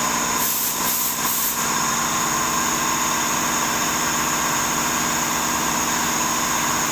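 CNC milling machine running with a steady whine. Three short hisses come in the first second and a half, then the machine runs on evenly.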